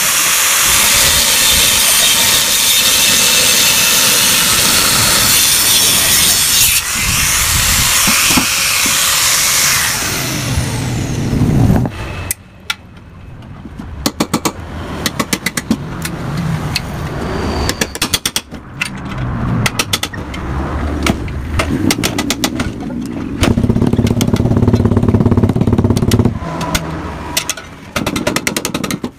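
Power tool cutting open the metal body of a Yamaha RX-King exhaust muffler: a loud, harsh cutting noise that winds down about twelve seconds in, followed by lighter, uneven running with many sharp clicks and knocks on the metal.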